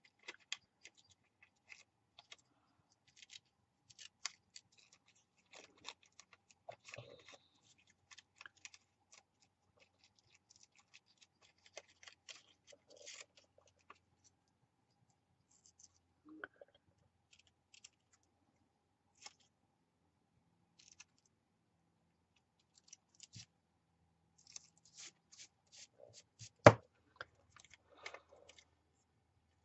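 Small scissors snipping paper in short, irregular cuts, with one louder knock near the end.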